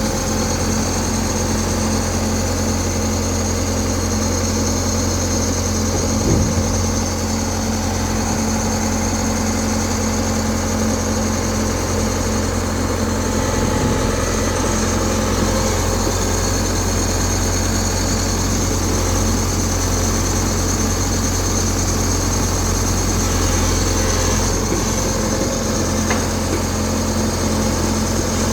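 Excavator's diesel engine running steadily with an even drone, and a brief knock about six seconds in.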